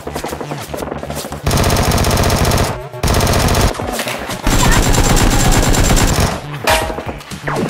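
Dubbed-in automatic gunfire sound effect standing in for the toy blaster, rapid shots in several long bursts: one starting about a second and a half in, a shorter one around three seconds, and the longest from about four and a half to six and a half seconds.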